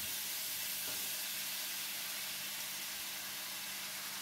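Pork, chicken and carrot slices sizzling in hot pork oil in a wok: a steady hiss that fades slightly.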